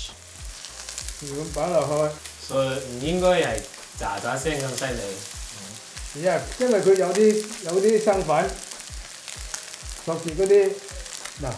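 Coated tilapia fillets sizzling in hot oil in a stainless steel pan, just after being laid in to sear.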